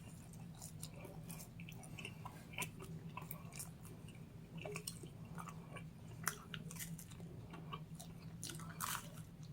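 Close-miked chewing of pepperoni pizza: faint, scattered wet mouth clicks and smacks, over a steady low hum.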